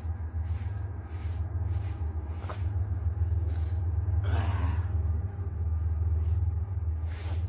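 Someone making a snow angel: repeated brushing and crunching strokes in snow, over a steady low rumble, with a short gasp about halfway through.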